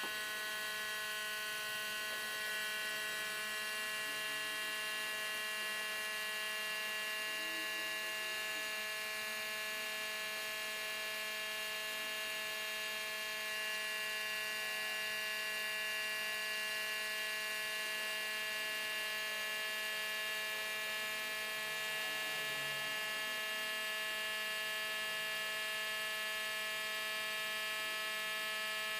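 A steady electric hum or whine made of many fixed tones, unchanging in pitch and level throughout.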